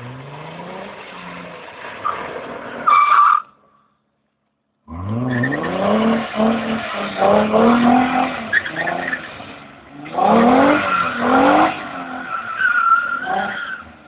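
Nissan 300ZX's V6 engine revving hard again and again while drifting on wet tarmac, its pitch climbing and falling, with short tyre squeals near the start and near the end. The sound drops out completely for about a second around four seconds in.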